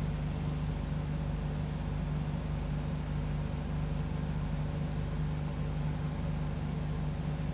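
Steady low mechanical hum over an even hiss, unchanging throughout.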